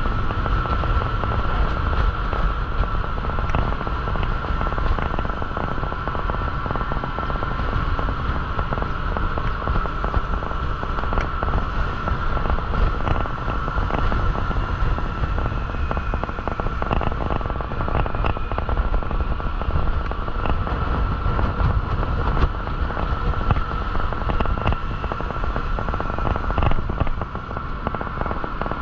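Motorcycle riding along a road, heard from a handlebar-mounted camera: a steady low rumble of wind buffeting the microphone over the engine and road noise, with a steady high-pitched whine.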